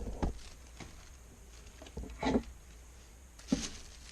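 Cardboard packaging being handled while a boxed stand mixer is lifted out of its box: three short knocks and scrapes, the loudest a little past two seconds in.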